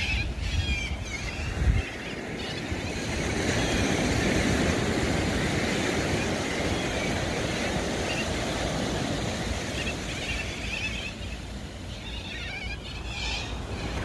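Small waves washing onto a sandy beach, with wind buffeting the microphone. Short high chirps come in briefly near the start and again near the end.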